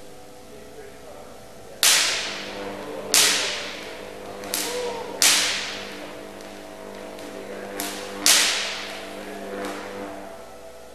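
Sparks cracking across the two metal spheres of a sphere gap at 100 kV: seven sharp cracks at uneven intervals, four of them loud, each ringing away in the room's echo. Under them runs a steady electrical hum.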